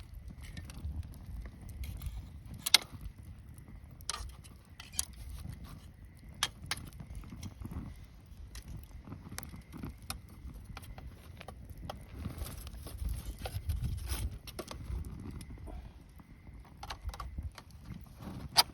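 Wood campfire crackling: irregular sharp pops and snaps over a low, steady noise of the flames, with a loud pop about three seconds in and another near the end.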